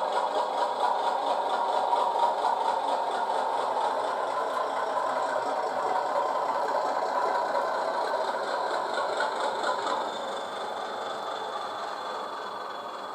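A Class 30 diesel locomotive sound file playing on a DCC sound decoder, voicing a Mirrlees engine (recorded from a real Class 37/9's Mirrlees MB275T). The engine runs steadily with a rattling beat. About ten seconds in it drops a little in level and a faint high whine appears.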